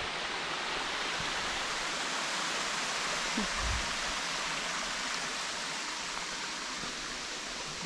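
Steady rushing of a shallow creek pouring over rock ledges and small cascades at the top of a waterfall.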